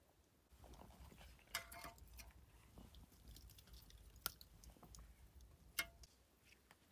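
Faint crackling and scraping as a metal rod stirs the wood fire inside a clay oven, with three sharp clicks, two of them ringing briefly like metal striking.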